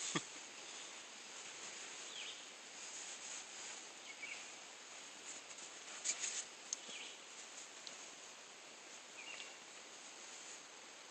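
Outdoor ambience: a steady hiss with a few faint short chirps, and brief scratchy rustles about six seconds in.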